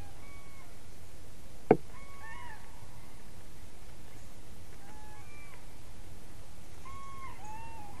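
Bird calls: short, arched whistled notes, singly and in pairs, at changing pitches. About two seconds in there is one loud, sharp knock, the loudest sound here, which may be the woodpecker striking the wood or the camera mount close to the microphone.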